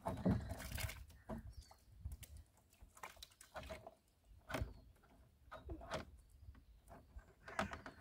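Irregular knocks and rattles, about one or two a second, as a wire-mesh fish trap is shaken upside down over a plastic bucket to empty out its catch of fish.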